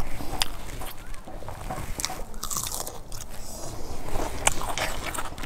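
Close-up eating sounds: a person biting and chewing food held in the hand, with a few sharp crunchy clicks.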